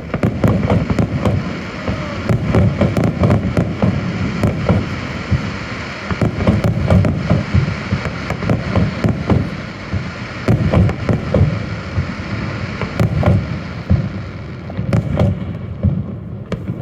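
Fireworks display: a dense, continuous run of bangs and crackles, many per second, with a few separate louder bangs near the end.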